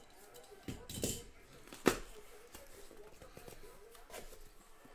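Light handling noises: a short rustle about a second in and one sharp click just before two seconds, over faint room noise.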